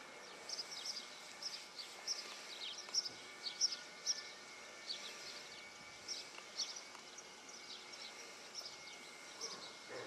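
Small birds chirping: many short, high, falling calls in quick succession, over a faint steady high-pitched hum.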